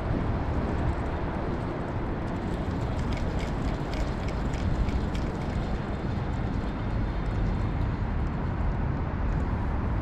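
Steady low rumbling of wind on a chest-mounted action camera's microphone, with a short run of faint ticks about three to five seconds in.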